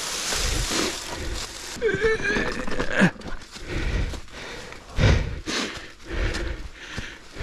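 Mountain bike riding noise: a rushing hiss at first, then irregular low knocks and thumps from the bike going over rough, stepped ground. A short pitched cry-like sound comes about two seconds in, and a sharp knock follows at about three seconds.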